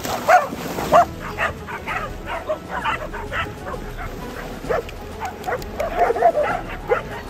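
Several dogs barking over and over in short, sharp barks, about two or three a second, bunching together around six seconds in.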